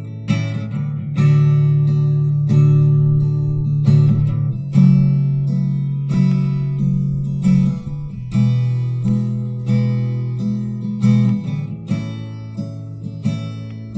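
Acoustic guitar strumming chords from a recorded track in playback, with a strong strum about once a second and the chords ringing between.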